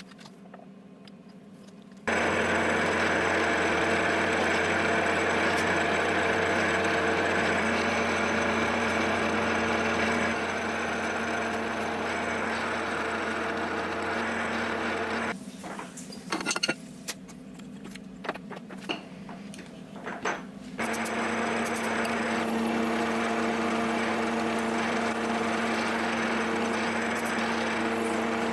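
Milling machine spindle running while drilling into an aluminium cylinder: a loud, steady machine sound that starts about two seconds in, breaks off for several seconds in the middle with a few clicks and knocks, then starts again.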